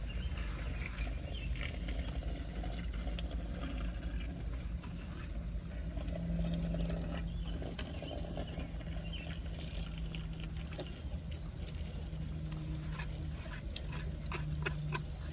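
Steady low rumble and hum of a car idling, heard from inside the cabin, with small wet clicks and chewing of someone eating, the clicks thicker near the end.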